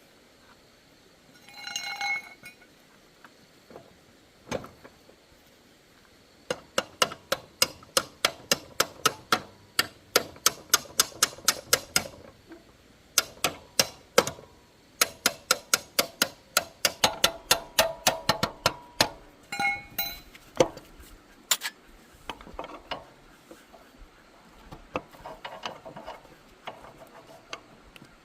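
Long runs of sharp, hard taps at about three a second, with a short squeak before them and another in the middle, then sparser irregular taps.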